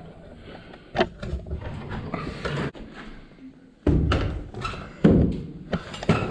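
A few knocks and heavy thuds: a sharp knock about a second in, two heavy thuds around four and five seconds in, and a couple of clicks near the end.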